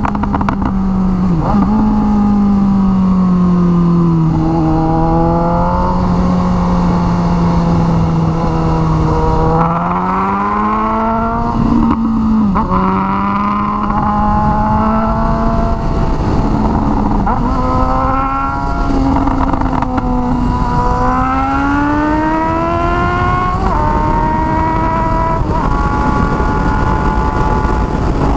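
Suzuki GSX-S750's inline-four engine running through a straight pipe with no muffler, riding through the gears. The note climbs as it revs and drops sharply at each gear change, several times, with one slower fall and rise midway.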